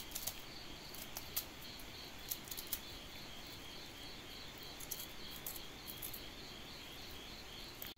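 Crickets chirping in a steady, evenly pulsing trill, with a few short faint clicks scattered through.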